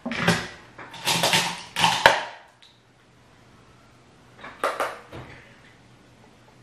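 Makeup products and packaging being handled and clattering, as she reaches for her blush: a run of loud rustles and knocks over the first two and a half seconds, then a shorter burst just before five seconds.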